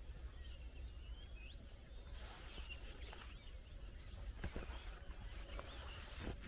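Faint outdoor ambience: distant birds chirping now and then over a low steady rumble, with a couple of soft clicks in the second half.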